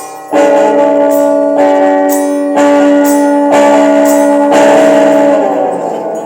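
Guitar played with a slide: a chord struck roughly once a second and left to ring, then slid downward in pitch near the end.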